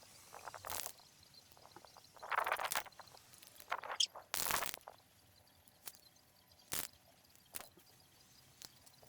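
Several short hissing bursts from an aerosol can of black rust-preventive spray paint, the loudest about halfway through, followed by a few sharp clicks.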